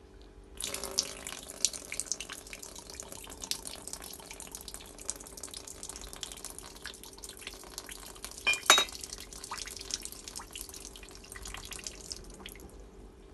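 Water pouring and splashing out of the threaded gas inlet of a boiler gas valve (SIT Sigma) as it is tipped, starting about half a second in and stopping near the end, with a knock about nine seconds in. Water inside a gas valve is the sign of a boiler that has been flooded.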